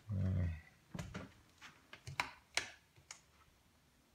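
Footsteps on a garage's concrete floor: a handful of sharp clicking steps at an uneven pace, dying away in the last second. A short low hum, like a voice, comes first.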